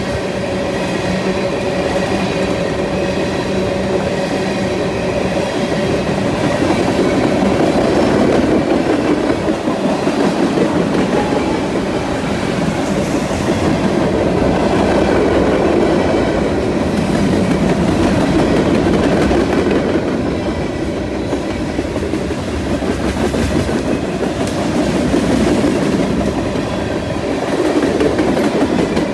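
Cars of a mixed freight train (gondolas, covered hoppers and tank cars) rolling past close by: a continuous rumble and clatter of steel wheels on the rails that swells and eases as the cars go by.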